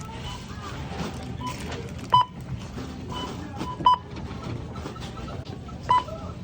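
Checkout barcode scanner beeping as items are scanned: a short beep every second or two, some louder than others, over the steady murmur of a busy store.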